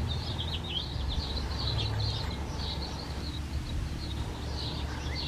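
Small birds chirping and twittering in quick, irregular calls, over a low steady rumble.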